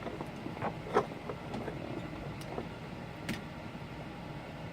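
Scattered light clicks and taps of tools and parts being set down and handled on a work surface, over a steady low hum.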